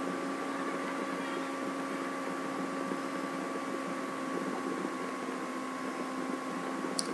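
Steady electrical hum with a few constant tones over an even hiss, with one short click near the end.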